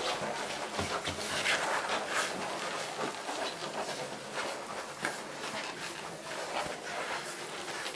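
A litter of young Dalmatian puppies suckling at their mother: a busy, continuous run of many small, short noises.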